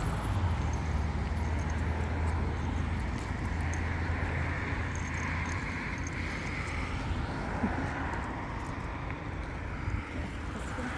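Road traffic outdoors: a vehicle's steady low engine hum that stops about halfway through, with tyre and road noise rising and falling.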